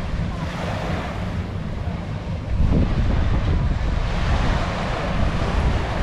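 Surf washing onto a sandy beach, with wind buffeting the microphone as a low rumble; it swells louder about two and a half seconds in.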